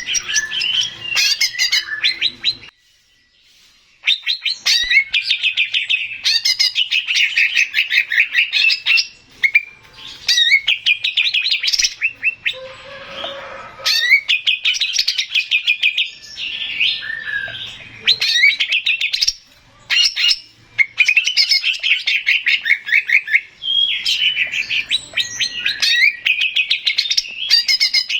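Male green leafbird (cucak ijo) singing: loud phrases of fast, rapidly repeated chirping notes, each a few seconds long and broken by short pauses, with a brief silence about three seconds in.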